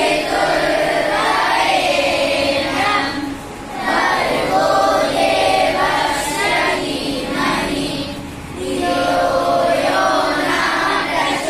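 A large group of children singing a prayer together in unison, in three long phrases with brief breaks between them.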